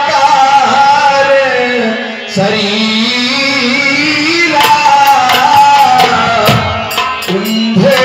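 A man singing a long, drawn-out melody through a loudspeaker, his held notes sliding up and down, with drum strokes joining about halfway through.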